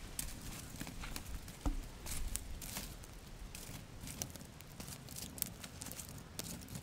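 Wood fire crackling with irregular sharp pops and snaps as a stick is pushed into the burning logs and embers, with a louder knock under two seconds in.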